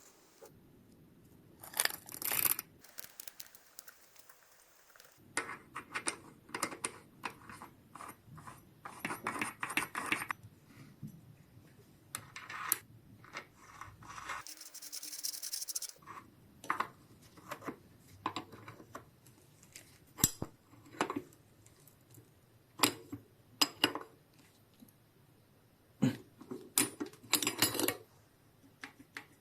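Small metal parts and tools clinking and clicking as they are handled, in irregular bursts, with a short hissing noise about halfway through.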